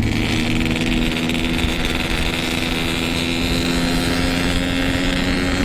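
Yamaha RX-King's 135cc two-stroke single-cylinder engine running steadily under way, its pitch creeping up slightly, with wind noise on the microphone.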